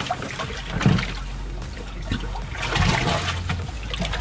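Water sloshing and splashing in a boat's livewell as a hand works in it, with louder splashing about halfway through.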